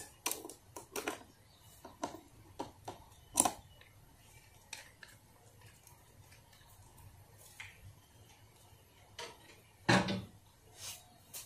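Irregular clicks and light clatter of small hard parts as clearance lights are worked off a camper's aluminium siding, with one louder knock near the end.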